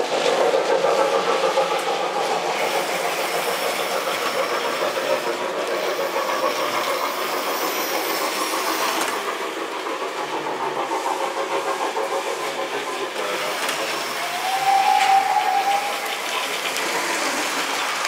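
Electric model trains running on the layout's track: a steady rapid clicking and whirring of wheels on rail and small motors. A short higher tone sounds about fifteen seconds in.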